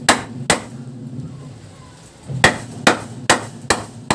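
Wooden-handled hammer pounding on the wooden stair framing. Two blows at the start, a pause of about two seconds, then five quicker blows at about two to three a second.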